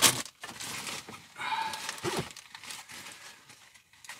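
Handling noises inside a car as a navigation unit is being fitted: a sharp knock at the start, then rustling and shuffling, with a short pitched vocal noise about one and a half seconds in.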